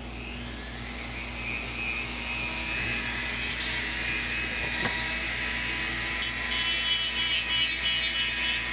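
Dremel rotary tool on a flexible-shaft extension running with a high whine that rises in pitch over the first couple of seconds, then holds steady. From about six seconds in, a rougher, uneven scratching joins it as the quarter-inch 240-grit sanding drum grinds into the polymer Glock frame, cutting the trigger-guard undercut.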